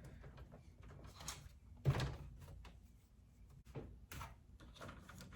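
Hands handling a small mini-ITX computer case and its cables: a few light knocks and clicks, the loudest about two seconds in.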